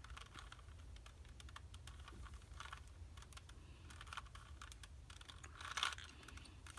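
Rubik's Cube layers being turned by hand: faint plastic clicking in short clusters, the loudest near the end, over a low steady hum.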